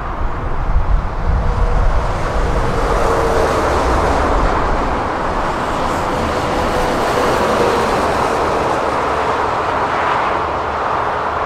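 Scania V8 trucks with open exhaust pipes driving past on a motorway: a steady, loud low engine rumble mixed with tyre and traffic noise.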